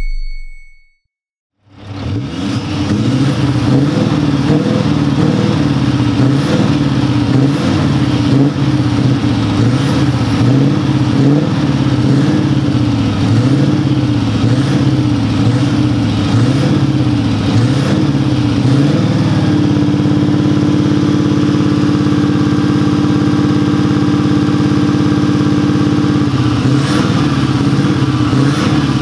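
Scania R730's 16-litre V8 diesel running through its loud exhaust, the revs rising and falling in an even rhythm about every second and a quarter. About two-thirds in the revs are held steady and raised for several seconds, then the rise and fall starts again. The engine comes in about two seconds in, after a brief silence.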